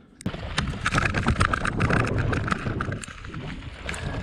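Bikepacking bike rolling over a rough stony dirt track: tyres crunching on loose stones and the bike rattling, with many small clicks. It starts abruptly about a third of a second in.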